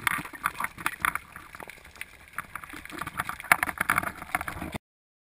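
Underwater sound picked up by a camera in a waterproof housing: irregular crackling and knocking of water moving and the housing being handled. It cuts off abruptly near the end.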